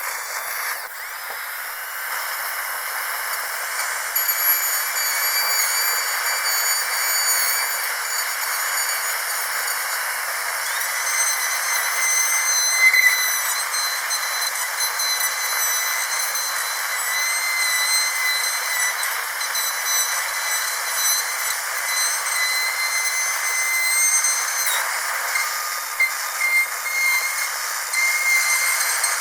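Dentist's high-speed drill running continuously: a high whine over a steady hiss, its pitch shifting slightly now and then.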